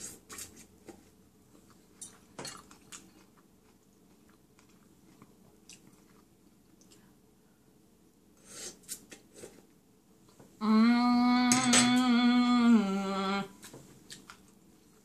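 Soft chewing and slurping of ramen noodles, with scattered mouth smacks. About ten seconds in comes a much louder hummed 'mmm' of nearly three seconds, held on one pitch and then dropping a step before it stops.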